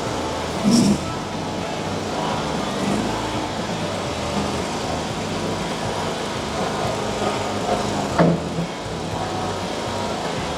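Mini skid steer loader's engine running steadily while the machine works, with a short clunk about a second in and another about eight seconds in.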